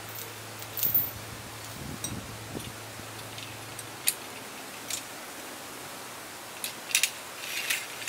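Metal chain and come-along hardware clinking now and then as they are handled, a handful of sharp clicks with a denser cluster near the end, over a steady low hum.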